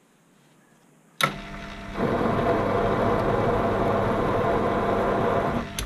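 Proxxon PD 250/e mini lathe switched on with a click about a second in. Its motor and gears run steadily, with a whine and a louder cutting noise from about two seconds in, as the single-point tool takes a threading pass on a steel bar. It is switched off with a click just before the end, stopping with the tool at the end of the cut.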